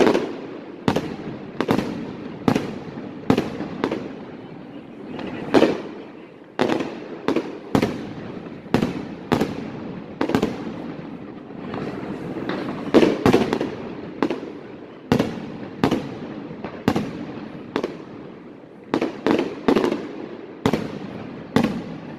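Fireworks display: a steady series of sharp explosive bangs, about one or two a second, each followed by a rolling echo, over a continuous rumble of further bursts.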